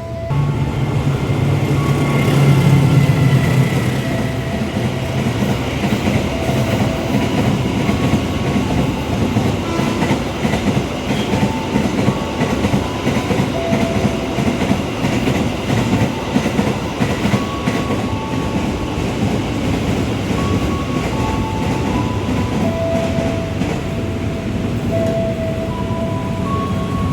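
Electric commuter train, a JR East 205 series EMU, running along the track: a steady rumble and rail noise with wheels clicking over the rail joints. It is loudest in the first few seconds.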